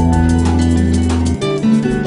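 TV channel ident music: sustained chords that change to a new chord about a second and a half in.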